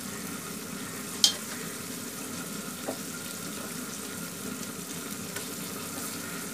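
Raw duck pieces sizzling as they go into hot oil and fried onion-spice paste in an aluminium pot, a steady frying hiss. One sharp clink about a second in, and a softer knock near the middle.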